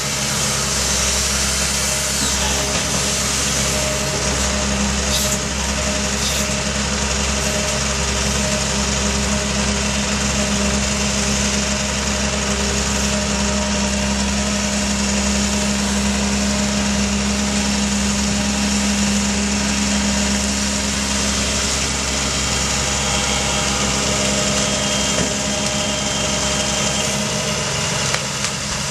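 Diesel engine of a Doosan amphibious excavator running steadily, a continuous engine drone with no breaks.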